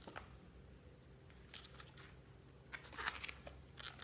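Faint rustling of glossy photobook pages being handled and turned, in a few short rustles about one and a half, three and four seconds in.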